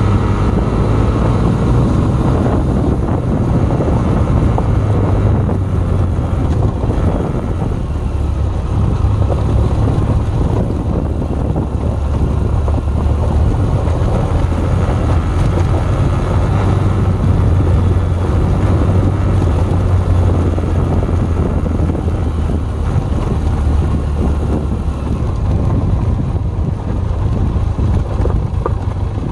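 Benelli TRK502X's parallel-twin engine running under light throttle on a gravel dirt road, its note shifting up and down as the rider works the throttle, with wind noise on the microphone.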